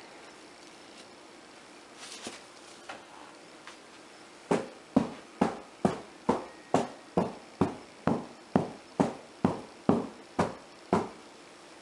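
A soap loaf mold filled with thick, partly seized cold process soap batter is knocked down again and again on a hard surface to settle the batter. There are about fifteen sharp knocks at roughly two a second, starting about halfway in.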